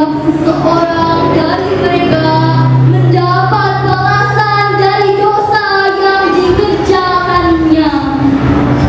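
A teenage girl's solo voice chanting melodically in long, wavering, held phrases, in the style of Qur'anic recitation (tilawah). A low steady hum sits under it for a few seconds in the middle.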